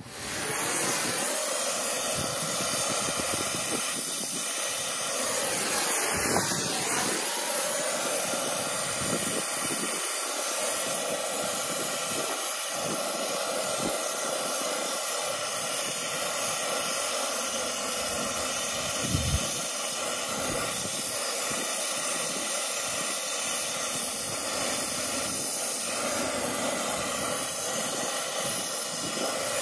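Brazing torch burning with a steady hiss as its flame heats a copper line joint to unbraze it from a heat pump's reversing valve.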